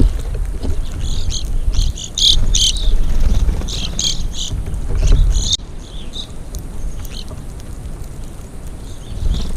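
Small birds chirping in quick short high notes, busiest in the first half and thinning out after, with wind rumbling on the microphone.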